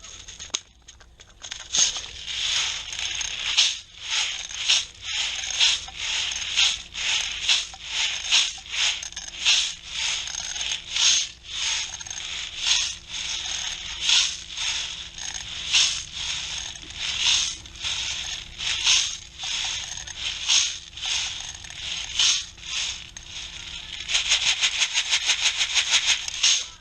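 Footsteps crunching over dry ground and vegetation at a steady walking pace, about two to three steps a second. Near the end it turns into a quick, dense run of clicks lasting about three seconds.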